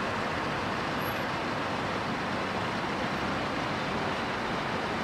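Steady vehicle noise: an even hiss and low rumble with no distinct events, from a car moving slowly or from traffic.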